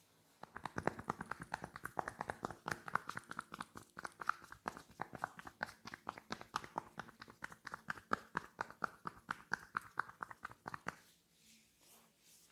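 Hands tapping rapidly on the head during a percussive head massage: a quick, steady rhythm of sharp slaps that starts about half a second in and stops near the end.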